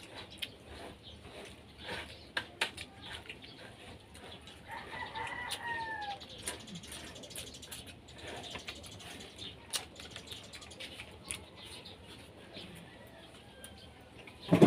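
Chicken calling: one drawn-out call that arches and falls about five seconds in, over scattered small clicks and taps. A rooster starts crowing loudly at the very end.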